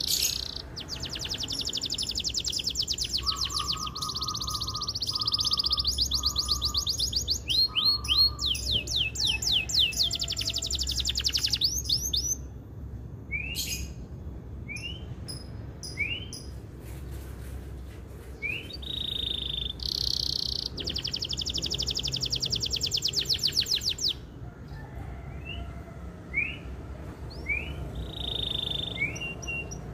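Male domestic canary singing: long, very rapid trilled rolls, broken by single short rising chirps, with a second long roll about twenty seconds in.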